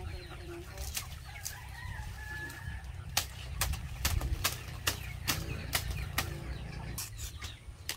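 A long knife cutting leaflets off a fresh coconut palm frond: a string of sharp, irregular cuts and snaps with the frond rustling. Chickens cluck in the background during the first few seconds.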